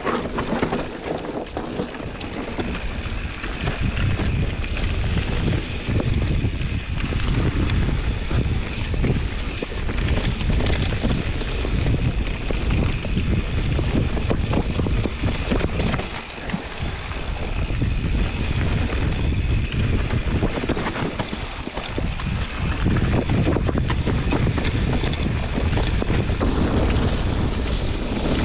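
Wind buffeting a camera microphone over a continuous low rumble and rattle from a mountain bike riding a trail, rising and falling in loudness.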